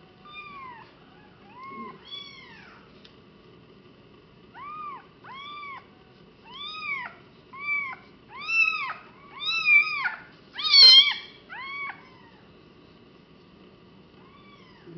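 A days-old kitten mewing over and over, high thin mews that each rise and fall in pitch. The mews come faster and louder toward about 11 seconds in, then stop.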